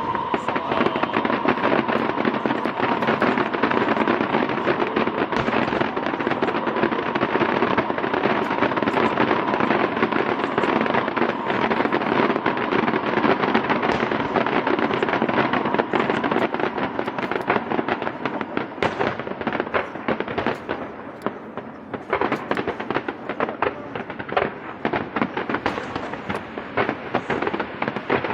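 Fireworks display going off in a dense, continuous barrage of rapid crackling pops and bangs, thinning to more separate cracks from about three quarters of the way through.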